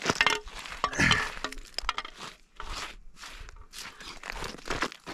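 Hands scraping and raking loose gravel and broken schist out of a freshly dug hole: a run of gritty crunches and scrapes, several a second.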